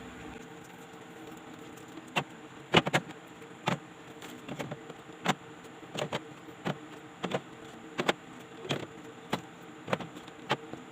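Light knocks and clicks, irregular at about one or two a second, of items being set onto the shelves of a refrigerator, over a faint steady hum.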